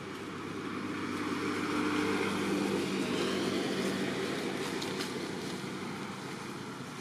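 Engine noise of a passing motor vehicle, swelling over about two seconds and then slowly fading.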